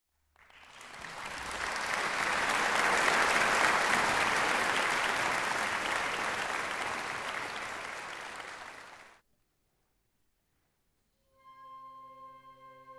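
Audience applauding, swelling and then fading out about nine seconds in. After a short silence, the wind orchestra comes in with a soft, held chord.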